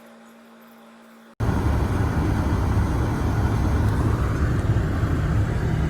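A faint steady hum, then a sudden cut to a loud, steady rumble of car and road noise, with the low end heavy as in wind buffeting.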